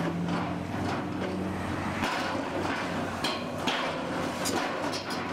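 Excavator's diesel engine and hydraulic auger drive running steadily under load while the auger lifts out of the hole, with irregular clunks and thuds as wet clay spoil is flung off the turning flights. The low drone changes pitch about two seconds in.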